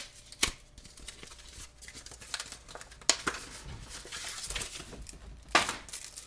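Trading card pack wrapper being crinkled and torn open by hand, with sharp rustles about half a second in, about three seconds in and near the end, over quieter handling of the pack and cards.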